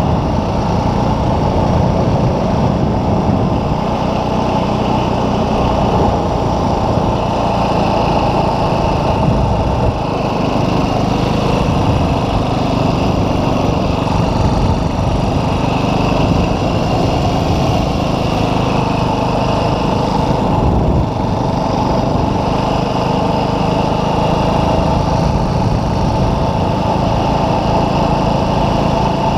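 Dirt bike engine running steadily as the bike rides along at an even pace.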